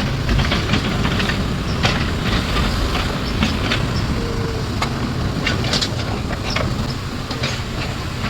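Heavy diesel machinery of an excavator and dump trucks running with a steady low rumble, with irregular metallic clanks and knocks scattered through it.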